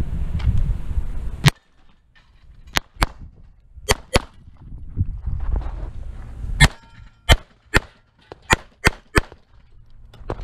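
Handgun shots in a timed IDPA course of fire: about eleven sharp reports, many in quick pairs, with short gaps between strings as the shooter moves.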